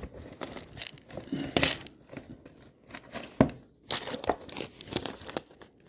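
A bread bag crinkling and rustling as it is handled and turned over, in a run of irregular rustles with a sharper crackle about three and a half seconds in.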